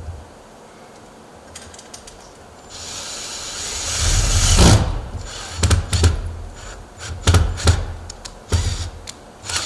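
Power drill driving a screw to mount a storm door's wind-chain bracket, running up for about two seconds from around the third second, followed by a series of short knocks and rattles.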